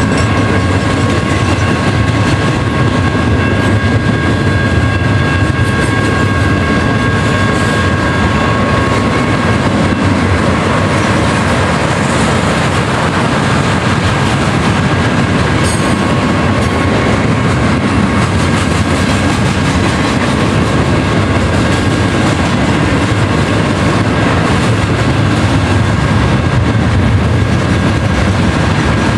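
Cars of a double-stack container freight train rolling steadily past, their wheels running continuously on the rails.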